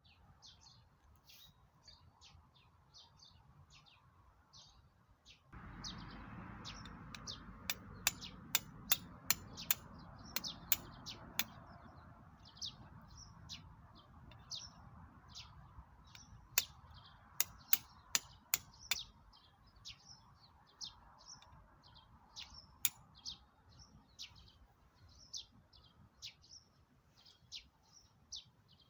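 Small birds chirping over and over in short high calls. Two runs of sharp snaps come a quarter of the way in and again past the middle, over a low rushing noise that starts a few seconds in.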